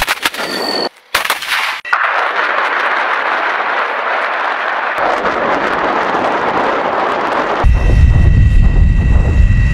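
Towed artillery guns firing: sharp reports about a second in, followed by a long rushing rumble that turns deeper and louder near the end.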